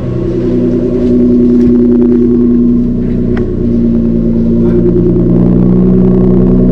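Thor electronic active-sound exhaust speakers on a Mercedes-Benz SLK 200 (R172) playing a synthesized supercar engine note at idle: a steady, loud, deep hum, heard close to the rear tailpipes.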